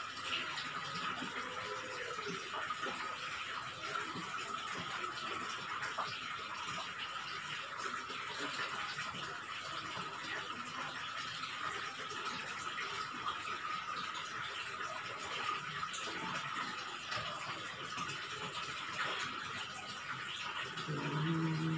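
Eating rice by hand: soft chewing and small clicks of fingers and food on a plate, over a steady background hiss with a constant faint high tone.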